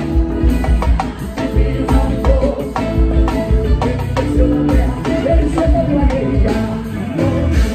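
Live band playing on stage: electric guitar over a steady drum beat, with a singer.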